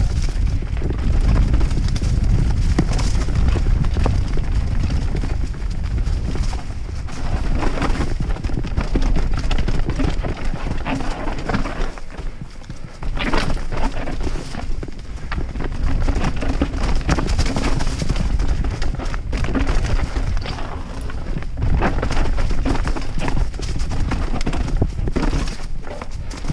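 YT Capra enduro mountain bike descending fast over rocks and leaf litter: tyres crunching on stones and the bike clattering with every hit, over a steady low wind rumble. The clatter eases briefly about halfway, then picks up again.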